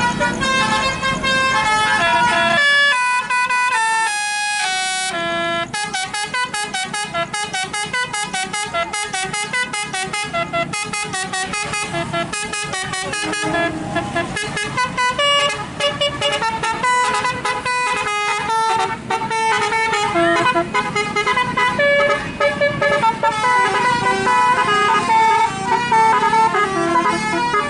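Telolet basuri, the multi-tone musical air horn fitted to Indonesian buses, playing a fast tune of short notes one after another.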